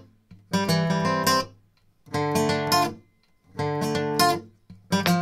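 Background music: acoustic guitar strummed in short chord phrases of about a second each, with brief pauses between them.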